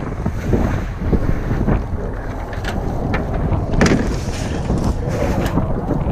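Wind buffeting the microphone in a heavy low rumble, with scattered rustles and knocks; the sharpest knock comes a little before four seconds in.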